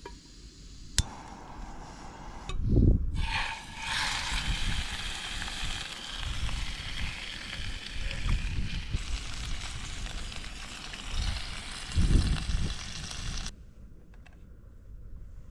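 Steak frying in a pan on a camp stove: a steady sizzling hiss that starts just after a sharp click about a second in and cuts off abruptly near the end. Low rumbling runs underneath, with two louder low surges.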